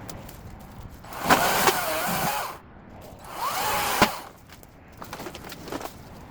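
Ego battery-powered chainsaw cutting branches in two short bursts, its motor whine rising as the trigger is pulled and falling away as it is released. Light crackling of brush in between.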